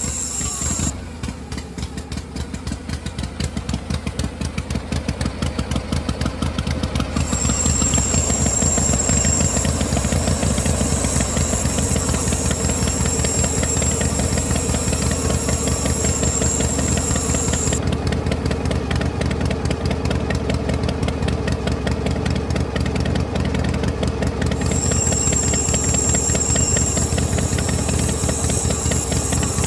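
Machine running steadily with a fast, even chugging rhythm like a small engine. A high steady whine joins it about a quarter of the way in, drops out past the middle and returns near the end.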